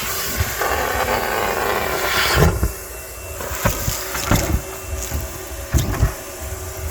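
Car wash vacuum running with a loud, steady rushing suction and a low rumble, broken by irregular knocks and clatters through the hose; the rush eases a little about halfway through.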